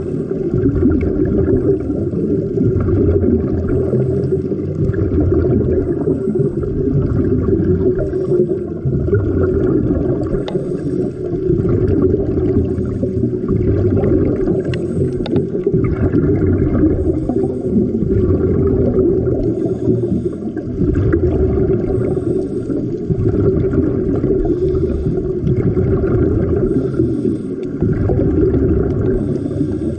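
Steady, muffled underwater rumble of moving water heard through a submerged camera, with gurgling from a diver's rising bubbles.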